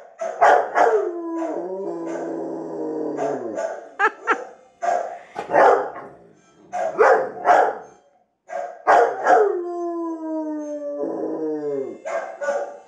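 Rottweiler barking and howling: short barks scattered throughout, and two long howls that slide down in pitch, the first starting about a second and a half in and the second starting near nine seconds.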